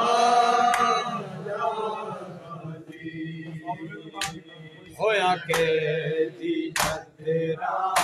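Group of men chanting a Shia mourning lament (nauha) together, with sharp unison chest-beating slaps (matam) that land about every second and a quarter in the second half.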